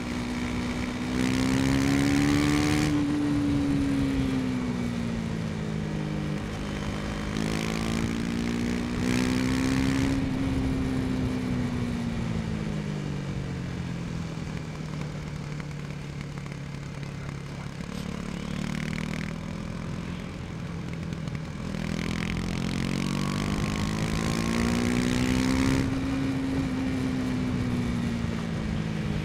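KTM 250 Duke's single-cylinder engine pulling on the road, its pitch rising and falling smoothly three times as the throttle is opened and eased off, with a rushing hiss that comes and goes.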